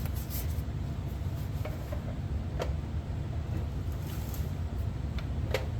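A few scattered clicks and knocks as a monitor stand's parts are fitted together, over a steady low hum.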